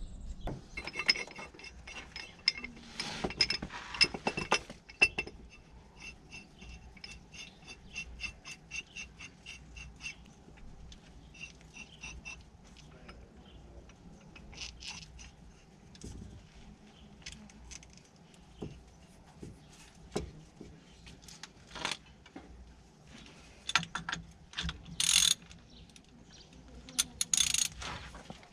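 Socket ratchet clicking as it winds the screw of a C-frame ball joint press to push an old steering rack bush out of the subframe. A fast run of clicks lasts about the first ten seconds, then comes slower, scattered clicking with a few louder knocks near the end.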